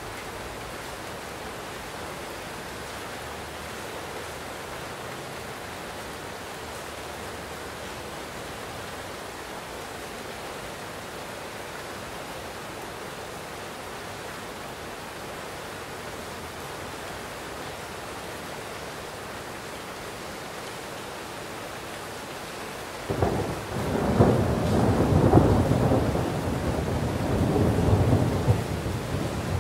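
Steady heavy rain, then well past halfway a roll of thunder breaks in suddenly and rumbles on, much louder than the rain.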